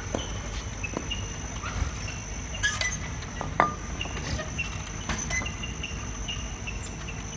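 Bottle labelling machine running: glass bottles knock and clink irregularly on the conveyor, over a steady low rumble and a thin, steady high whine.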